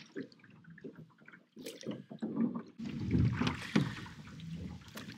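Rowing a small rowing boat: oars dipping and pulling through the lake water, with water sloshing and a few knocks, louder from about three seconds in.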